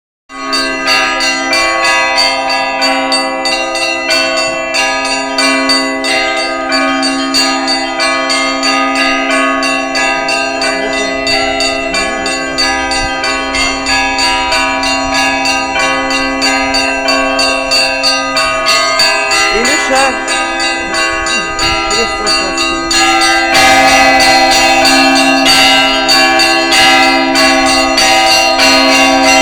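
Russian Orthodox church bells rung together in a festive Easter peal: a rapid, continuous run of strikes on the small bells over the steady ringing of the larger ones. It grows louder and fuller about 23 seconds in.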